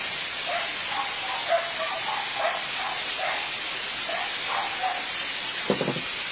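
Steady hiss of heavy volcanic ashfall coming down over roofs and trees, with a dog barking repeatedly in the background and a brief low thud near the end.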